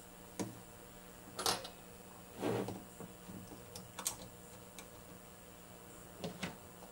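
A few scattered light clicks and taps as hands fit a small metal voltage regulator and its wire leads onto the back of a gauge.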